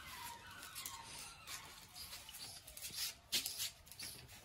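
A Doberman on a leash moving about and jumping up on a person: scratchy rubbing and scattered clicks from its claws on a concrete floor and its paws against clothing, with one sharper knock about three seconds in.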